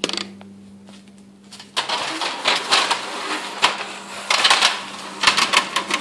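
Metal stepladder clanking and rattling as it is handled and climbed: a dense run of clicks and knocks starting about two seconds in, over a steady low hum.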